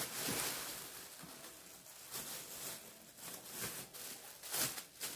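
Rustling and handling noise from items and their packaging being picked up and moved, with a few brief louder rustles scattered through.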